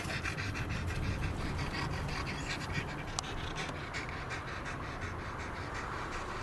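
A dog panting in a quick, steady rhythm, over the low rumble of a car driving, heard from inside the cabin.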